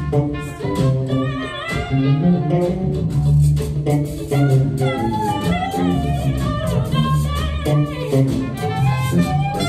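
A live band playing: bass and drums keep a steady groove under a melodic lead line that slides between notes.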